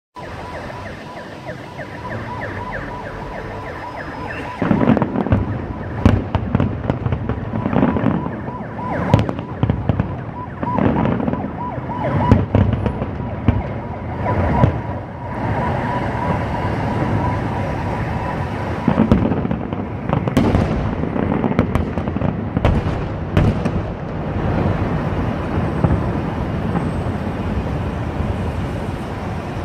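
Aerial fireworks bursting again and again: deep booms and sharp crackles that start about four and a half seconds in and keep coming, with a steady high tone underneath through the first half.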